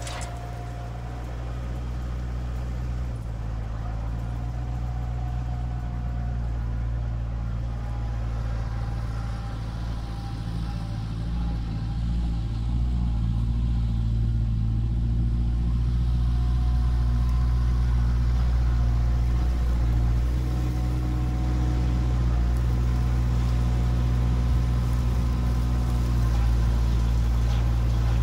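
Kubota tractor's diesel engine running steadily, growing louder in the second half as the tractor comes back toward the microphone.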